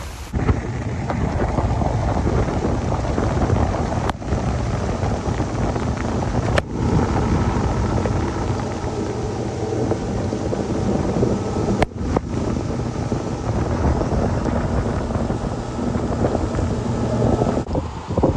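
Wind buffeting the microphone of a boat running fast across a lake, over the steady run of the boat's engine and the hull pushing through chop.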